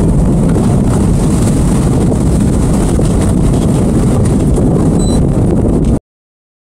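Boat motor running underway, with wind buffeting the microphone as the boat moves across open water. The sound cuts off suddenly near the end.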